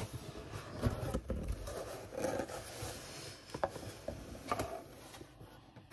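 Cardboard shipping box being opened by hand: the lid and flaps scrape and rustle, with a few light knocks.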